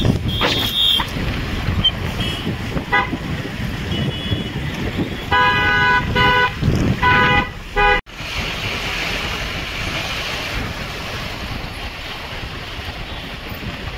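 Vehicle horns honking in city traffic over the steady road and engine noise of a moving pickup truck. There is a short toot about three seconds in, then longer honks from about five to seven and a half seconds in. The sound drops out for an instant about eight seconds in, after which steady road noise goes on.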